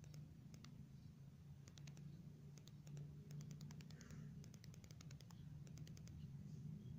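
Near silence: a low steady hum with faint scattered clicks in small clusters.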